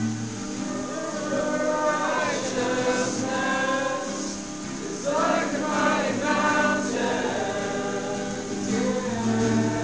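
Christian worship music: a choir of voices singing a song over sustained instrumental accompaniment.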